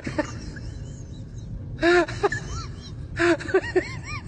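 A person's voice in two short bursts of rising-and-falling vocal sounds, with faint high chirps between them over a steady low rumble.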